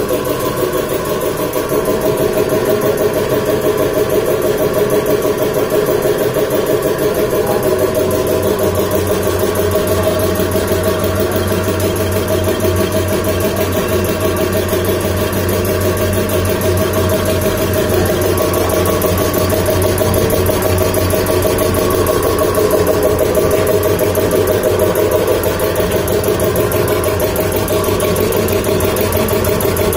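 Belt-driven electric air compressor running: the electric motor turns the pump on the receiver tank with a loud, steady hum.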